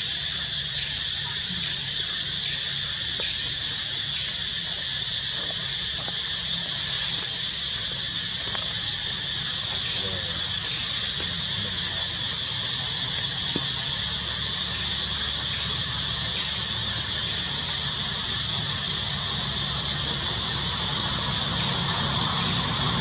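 Steady high-pitched hiss-like drone with a low hum underneath, unchanging throughout.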